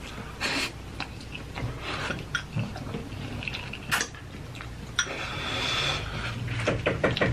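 Mouth sounds of eating spicy instant noodles: irregular slurping and chewing with small clicks of a fork against a bowl, and a longer airy slurp about five seconds in.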